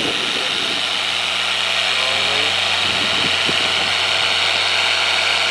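Harbor Freight electric polisher with a foam pad running steadily, its motor whirring as the pad works polish across car paint.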